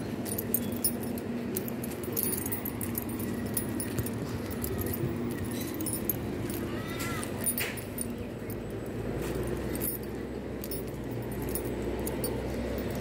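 Jingling and clicking of small carried items as someone walks, over a steady background hum. A brief squeal sounds about seven seconds in, and a deeper low rumble comes in about nine seconds in.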